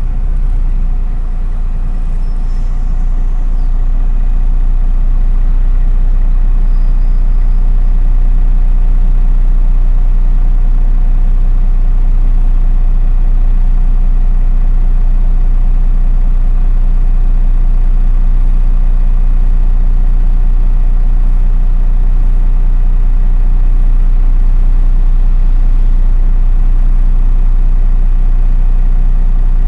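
MAN NÜ 313 bus's diesel engine running with a steady low drone, heard from inside the passenger cabin; it grows louder over the first few seconds and then holds at an even pitch.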